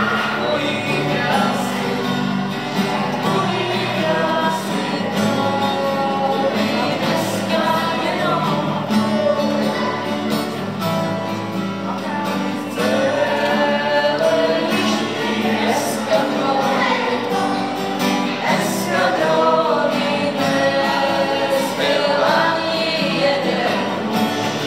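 A group of voices singing a song together, accompanied by two acoustic guitars.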